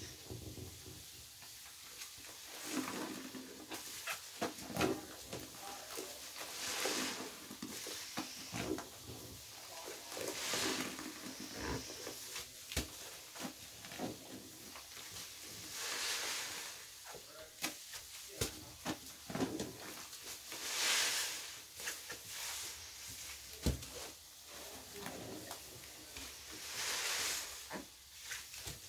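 Wet sponges squeezed and squished by hand in a tub of thick soap suds: a wet squelch with hissing, crackling foam every few seconds, and small wet clicks and pops in between.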